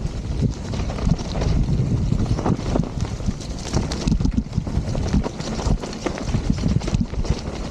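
Wind buffeting the action camera's microphone as a mountain bike is ridden at speed down a rough trail, with frequent knocks and rattles from the bike over bumps throughout.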